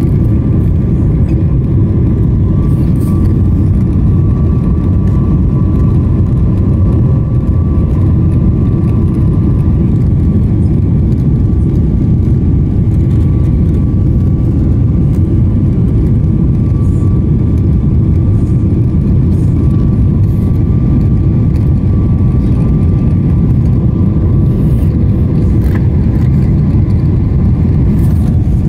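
Steady cabin noise inside a Boeing 777-300ER on its descent toward landing: an even, loud rush of airflow and engine noise with two faint steady whines running through it.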